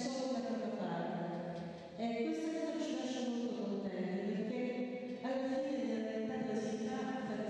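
A group of voices singing unaccompanied, a slow chant of long held notes that shift to new pitches every second or two, with a short break about two seconds in.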